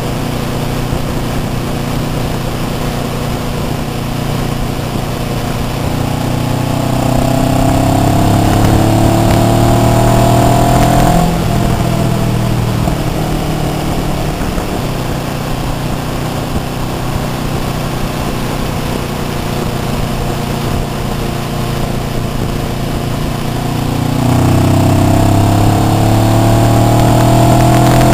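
Sport motorcycle engine under way, with wind noise over the handlebar microphone. The revs climb steadily, drop off suddenly about eleven seconds in, run steady, then climb again near the end.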